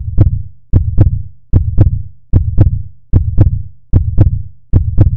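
Heartbeat sound effect: a steady lub-dub, deep double thumps repeating about every 0.8 seconds, some 75 beats a minute, seven beats in all.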